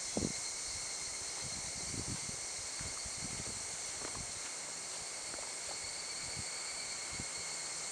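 Steady high-pitched insect chorus, with gusts of strong wind buffeting the microphone in short, irregular low rumbles.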